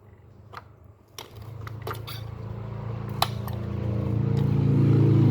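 A few light metallic clicks from working a tire off a small bicycle wheel rim. Under them, a low engine hum comes in about a second in and grows steadily louder.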